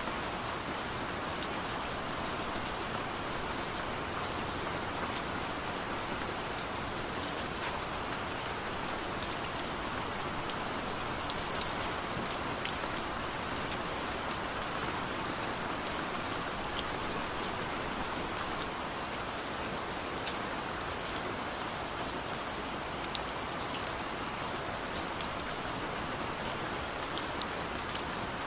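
Steady rain falling, with a constant hiss and many individual drops ticking and pattering close by on surfaces.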